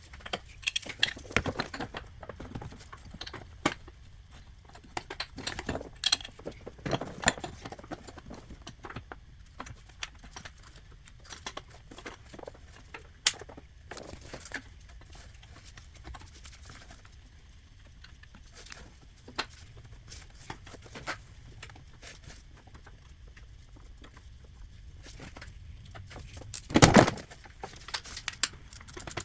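Metal-on-metal clinks, taps and rattles of hand tools and engine parts as a new serpentine-belt tensioner is set against the engine block and its bolt is started. There is a louder, one-second clatter near the end, then a quick run of ratchet clicks.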